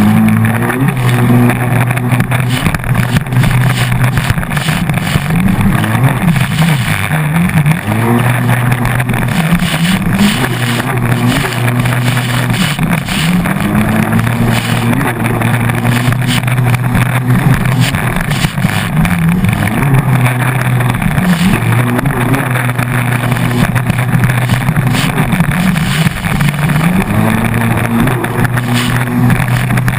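Hydrospace 110 hp stand-up jetski engine under way, its revs climbing again and again, holding and then dropping as the throttle is worked through the ride, over a steady rush of wind and water.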